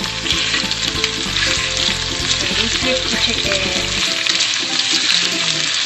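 Chicken pieces sizzling steadily in a hot frying pan, searing in their own fat with no oil added, while tongs turn them over.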